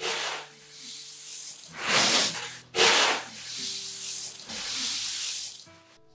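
Woven plastic sack rustling as it is shaken and held open, in a few swishing surges, the loudest about two and three seconds in.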